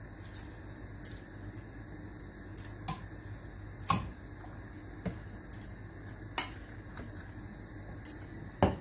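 Metal kitchen tongs clacking against a pan while pieces of fried salmon are turned in coconut-milk curry. There are several sharp, separate clacks, the loudest about four seconds in and another near the end, over a low steady background.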